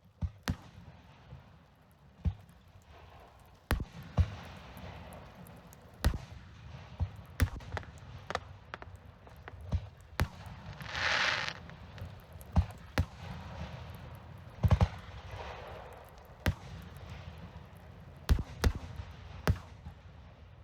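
Fireworks display: a string of sharp bangs at irregular intervals, some close together. Just past the middle there is a hissing burst lasting about a second and a half.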